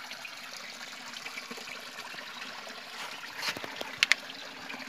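Running water, a steady rush like a stream, with two sharp clicks about four seconds in.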